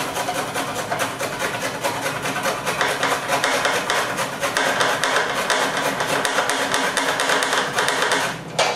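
Fresh ginger root being grated on a flat metal grater: quick, regular rasping strokes that stop near the end.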